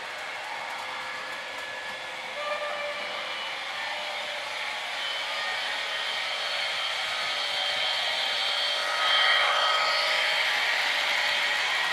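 H0-scale model train, an SU46 diesel locomotive model hauling freight wagons, running on the track: a whine of several thin tones over a rolling rush that grows louder as it approaches and is loudest as it passes close by about nine seconds in.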